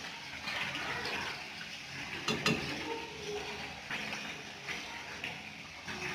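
Steady hiss of a gas burner heating a steel pot of water, with small rattles and one sharp metal clink about two and a half seconds in.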